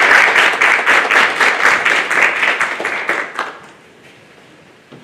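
Audience applauding, dense clapping that dies away about three and a half seconds in.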